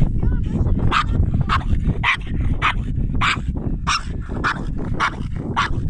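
A dog barking repeatedly, about two barks a second, over wind rumbling on the microphone.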